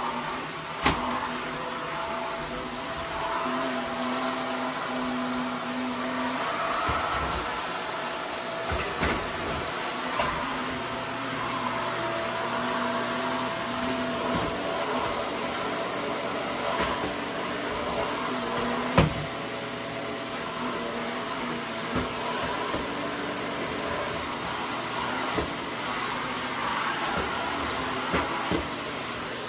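Vacuum cleaner running steadily while sucking up scraped-off sand-wall debris, with scattered sharp clicks of grit striking the nozzle and hose.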